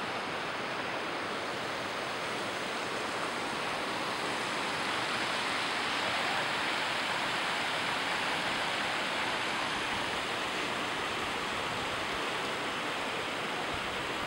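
Steady rushing of a mountain stream running over rocks.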